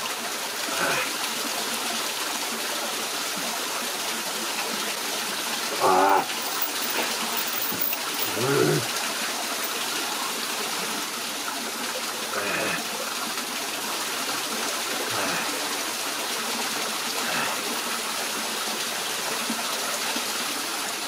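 Steady rush of a small waterfall running over rocks, broken by a few short mouth sounds and hums from a man eating, the loudest about six seconds in.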